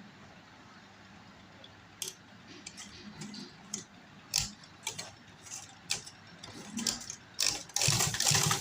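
Sewing machine: scattered clicks and knocks, then near the end the machine starts stitching with a fast, even mechanical chatter that is the loudest part.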